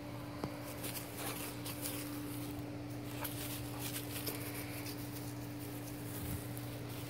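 A steady low hum with light, scattered rustles and ticks over it.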